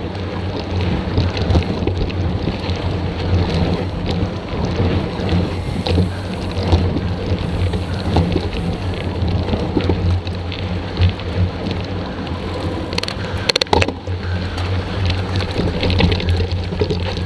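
Mountain bike riding fast over dirt and gravel, recorded from a handlebar-mounted camera: steady tyre rumble and wind with small rattles. About 13 seconds in, a short cluster of sharp clicks and knocks comes as the bike slows onto a rocky climb.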